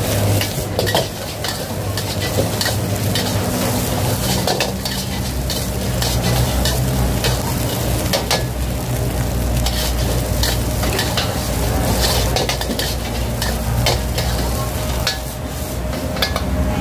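Fried rice sizzling in a hot wok while a metal spatula scrapes and clanks against it over and over as the rice is stir-fried, over a steady low hum.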